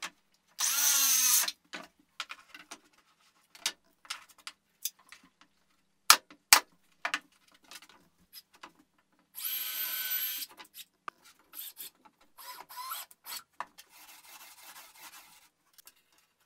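Compact cordless circular saw cutting plywood in short runs: about a second near the start, its pitch rising as it spins up, another second-long run about ten seconds in with a steady high whine, and a shorter one soon after. In between, sharp wooden knocks and clatters as the boards and saw are handled.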